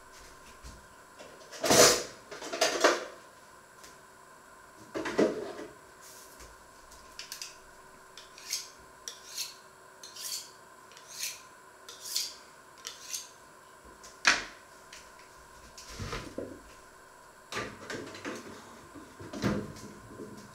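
Kitchen work sounds: knocks and clatter of dishes, cutlery and a wooden board being handled, with a run of short, sharp strokes about once a second in the middle.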